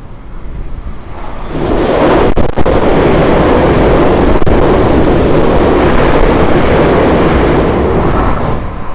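Hankyu train passing along the platform: a loud rush of wheel and rail noise that swells about a second and a half in, holds steady for about seven seconds, then falls away near the end.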